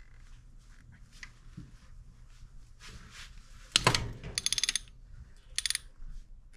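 Ratchet wrench clicking in two quick runs as the intake bolts are worked, just after a single loud clack about four seconds in.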